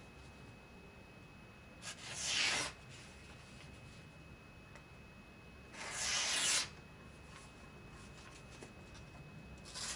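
Voltron V05 folding knife's 9Cr18MoV steel blade slicing through paper twice, each cut a short rasping swish of under a second, about four seconds apart.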